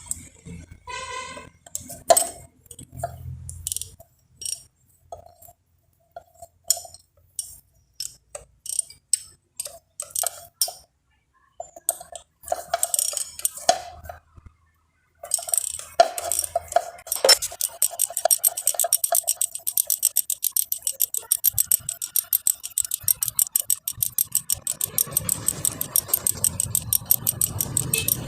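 Metal tools and engine parts clinking against each other, then, from just past halfway, a ratchet wrench clicking rapidly and evenly as the cylinder head studs are screwed into the engine block.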